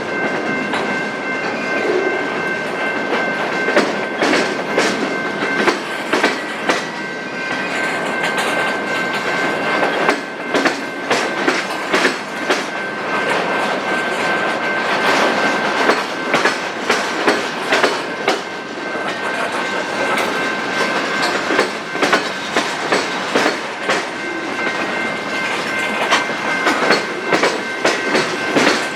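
Freight train cars rolling past, their wheels clicking sharply and irregularly over rail joints amid steady rumbling noise, with a thin high-pitched ring from the wheels throughout.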